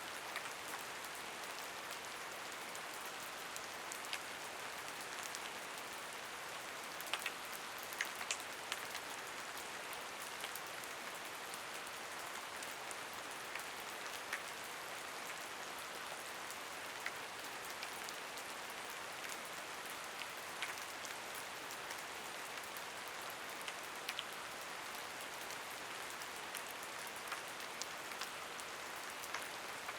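Steady rain falling, an even hiss with scattered sharper taps of single drops landing nearby.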